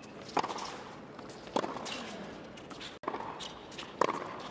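Tennis ball struck back and forth with rackets in a baseline rally: sharp pops about half a second in, about a second and a half in, and near the end.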